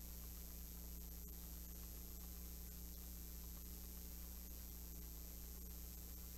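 Low-level room tone: a steady electrical hum under an even hiss, with one faint click about a second in.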